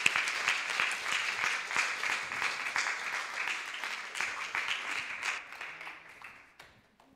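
Audience applauding, the clapping thinning out and dying away about six to seven seconds in.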